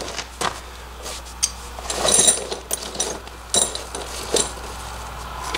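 Loose metal towing hardware (turnbuckles, hooks and chain links) clinking and rattling as it is picked up and handled, in a run of short clicks with a brighter jingle about two seconds in.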